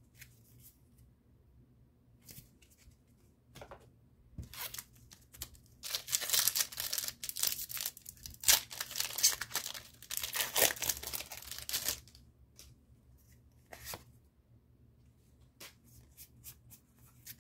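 Foil Pokémon booster pack wrapper being crinkled and torn open, a run of loud rustling rips from about six to twelve seconds in, with small handling clicks before and after.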